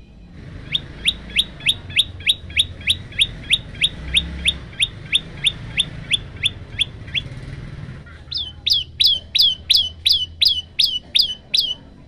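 Common tailorbird calling in rapid series of sharp, clear notes, each sliding down in pitch, about three a second. After a short pause about two-thirds of the way through, a second, louder run of higher-pitched notes follows at the same pace.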